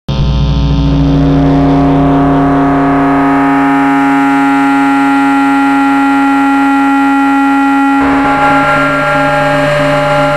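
Loud experimental noise-music drone: many steady tones stacked over a low rumble, held without a beat. About eight seconds in the low layer thins out and higher steady tones come in.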